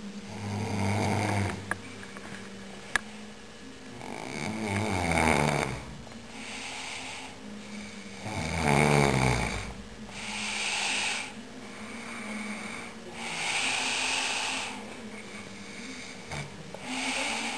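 A sleeping person snoring: about six snoring breaths, one every two to four seconds, the loudest about nine seconds in. Two short clicks come about two and three seconds in.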